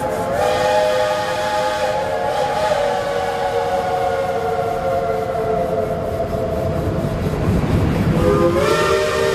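Steam locomotive chime whistle blowing long, several notes sounding together as one chord that sags a little in pitch and thins out about halfway through. Near the end a rumble swells, and a second, lower whistle chord starts.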